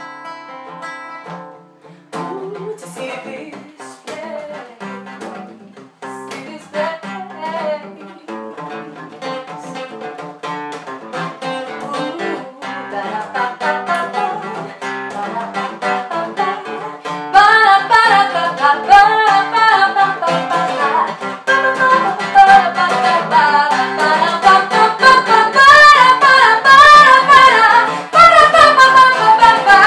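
Acoustic guitar and a woman's singing voice performing a song. A held chord rings at the start, the guitar takes up a picked and strummed pattern about two seconds in and grows louder, and the singing comes in strongly a little over halfway through.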